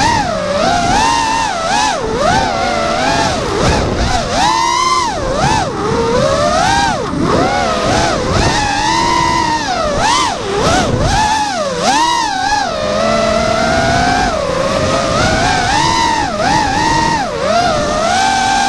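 FPV drone's brushless motors and propellers whining, the pitch constantly rising and falling as the throttle is worked during fast, low flight.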